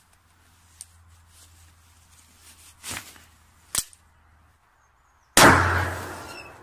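A single loud gunshot-like bang about five and a half seconds in, with a noisy tail that dies away over about a second, plausibly a shot from a toy cowboy pistol. Before it there are a few faint clicks and knocks from plastic toys being handled.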